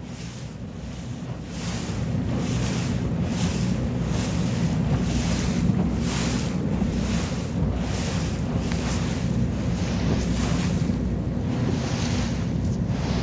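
Wind buffeting the microphone over the low drone of a small boat under way, with water rushing and splashing against the hull in a swell about twice a second. The sound grows louder about two seconds in.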